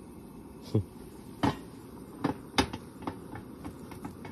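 Metal hot sandwich maker clanking against a gas stove's pot supports as it is flipped over: a string of sharp metal knocks, the loudest in the first three seconds, then lighter clicks.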